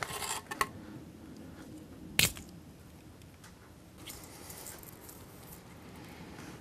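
Small handling sounds of hands working with wiring at a battery: rustling near the start, one sharp click about two seconds in, and faint rustling later.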